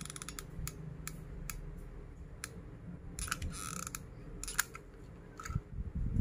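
Small sharp clicks and taps of plastic straw pieces being handled and glued into place, with a brief rustle a little after three seconds in and a few dull thumps near the end.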